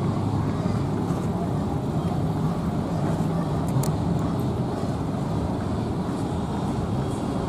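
Steady low drone of marine diesel engines from a tugboat pushing a cruise ship alongside the quay, with a couple of faint clicks about halfway through.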